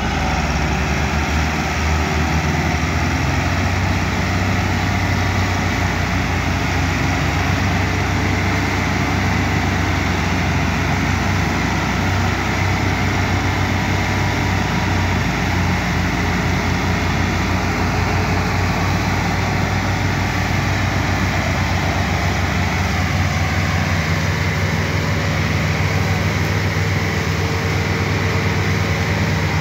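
Massey Ferguson 385 tractor's diesel engine running steadily under heavy load while hauling a loaded sugarcane trolley, mixed with the engine of a second tractor helping to pull.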